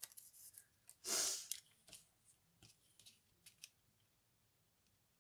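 Clear acetate sheet handled and flexed: one short rustle about a second in, followed by a few faint light clicks and taps of small craft tools on card.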